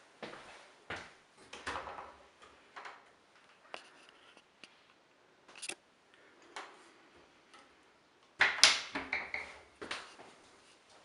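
Wooden cupboard door being opened and shut, with scattered clicks and knocks of its latch and handling, and a louder cluster of knocks near the end.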